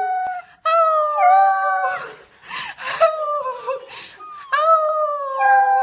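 Corgi puppy howling: several long, high-pitched howls, each held and sliding slightly down in pitch, with short breaks between them.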